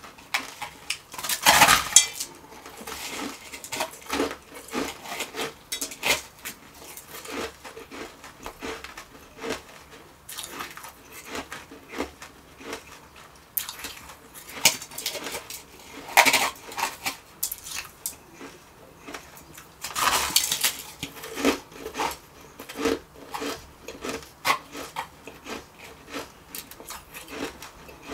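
Close-miked crunching of refrozen shaved ice being bitten and chewed, a dense run of sharp crackles. There are three louder bursts, just after the start, about halfway through and about two-thirds through. Light clinks come from the steel bowl held beneath.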